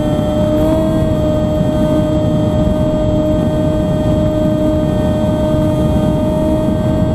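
Motor and propeller of a small unmanned aircraft, heard through its onboard camera: a steady high hum held at one pitch, stepping up slightly about a second in, over rushing wind noise on the microphone.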